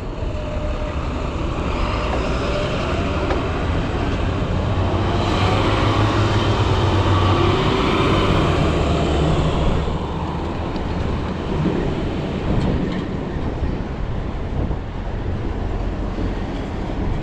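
A large vehicle passes close by, growing louder and loudest midway, then easing off about ten seconds in to a lower street rumble.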